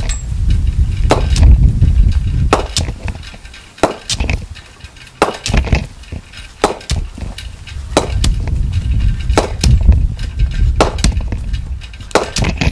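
Symonds Super Tusker Rhino Charge cricket bat striking a leather cricket ball again and again, a sharp crack roughly every second and a half, about nine hits, with a low rumble underneath. The blade, not yet knocked in or oiled, pings cleanly off the middle.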